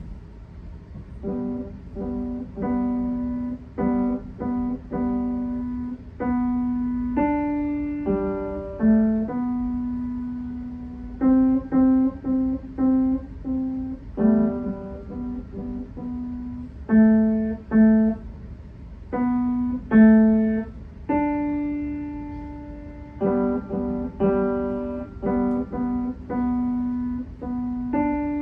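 A solo instrumental recital piece: a single melody played one note at a time, each note starting sharply and fading away. It begins a little over a second in.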